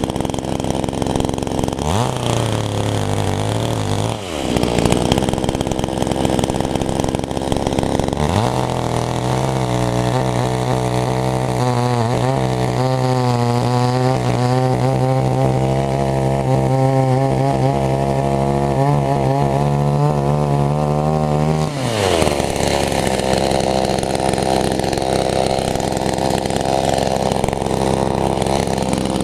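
Two-stroke chainsaw engine idling, revved briefly a couple of seconds in, then held at high speed for about thirteen seconds with a wavering note before dropping back to idle.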